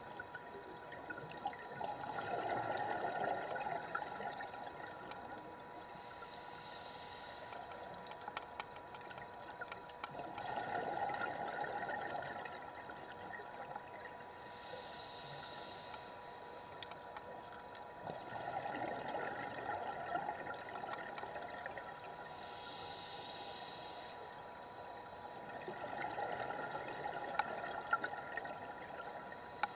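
Scuba breathing through a regulator: a hiss on each inhale alternating with a burst of bubbling exhaust on each exhale, about one breath every eight seconds, four exhales in all, over a faint steady hum.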